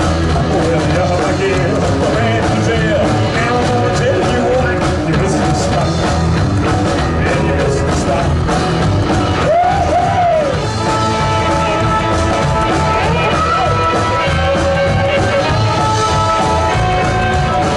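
Rock band playing live, loud and steady, with a voice singing over the instruments.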